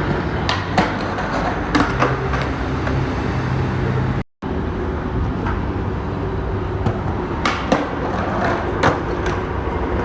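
Skateboard wheels rolling over pavement: a steady rumble with scattered clicks and knocks as the board crosses joints and cracks.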